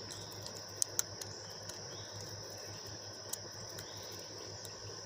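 Crickets chirping steadily in the background, with a few faint clicks from the pistol's small parts being handled, about a second in and again past three seconds.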